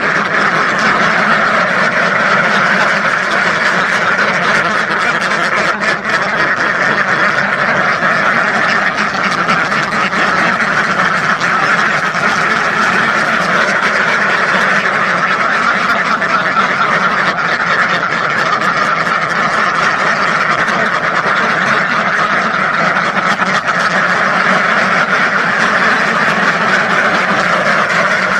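A large flock of ducks quacking continuously, hundreds of overlapping calls merging into one dense, unbroken chorus.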